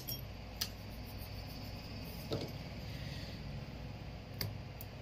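A few light clicks and taps as a smartphone battery and small parts are handled and pressed into the phone's frame, four short knocks spread over a steady low hum.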